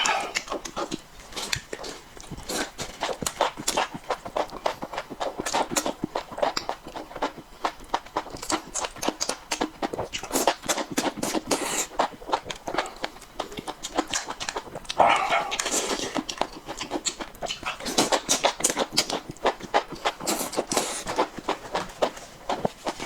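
Close-miked eating sounds: rapid, wet chewing and lip-smacking clicks, with a louder noisy stretch about fifteen seconds in.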